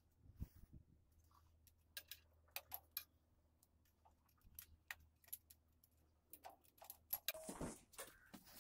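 Faint metallic clicks and clinks, scattered through near silence, from hands working among a diesel engine's fuel lines and glow-plug wiring. A brief louder rustle comes near the end.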